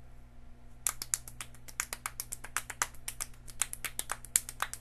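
Fast hand-clapping game: two people's palms clapping and slapping together in a quick run of sharp claps, several a second, starting about a second in. A low steady hum sits underneath.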